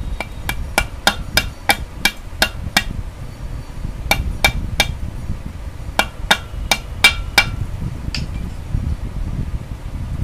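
Hammer tapping on a metal part in quick strokes, each with a short metallic ring: about nine blows at roughly three a second, a pause, three more, another pause, then five more and one last light tap. A steady low rumble runs underneath.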